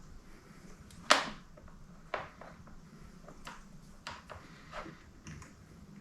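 Tools and parts being handled during wiring work: a sharp clack about a second in, a second one a second later, then a run of lighter clicks and taps.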